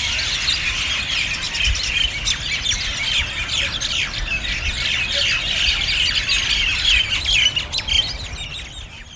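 A communal roost of common mynas: the massed chatter of many birds calling at once, with overlapping squawks, chirps and whistles. It fades out near the end.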